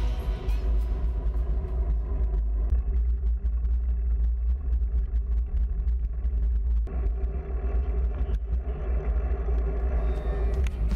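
Steady low wind rumble buffeting a handlebar-mounted action camera's microphone as a road bicycle rides along, with scattered light ticks and knocks.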